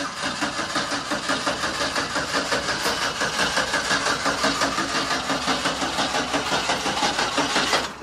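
Engine of a GMC step-van ice cream truck cranking over on its starter, a rapid even chugging, for about eight seconds without catching, then cutting off near the end: a hard-starting engine that won't fire.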